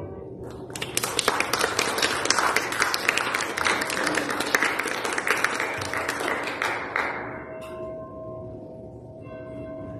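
Congregation applauding in a church sanctuary, a dense patter of many hands that dies away after about seven seconds. Faint held tones follow near the end.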